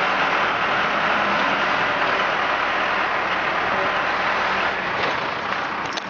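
A heavy engine running steadily with an even mechanical rumble.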